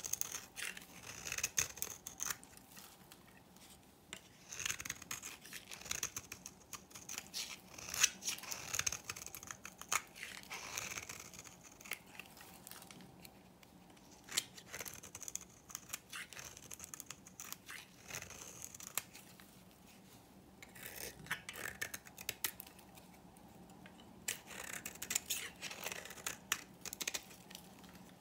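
A flat knife blade shaving and scraping a dry, varnished bar of green-painted soap, giving crisp, crackly strokes in repeated bursts with short pauses between them.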